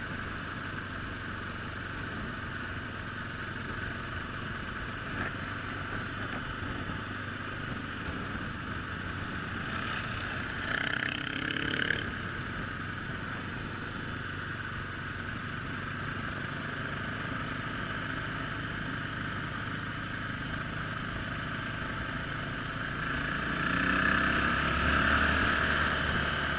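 Motorcycle engine running on the move, with steady wind rush over the microphone. The engine note rises and gets louder about ten seconds in, and again near the end.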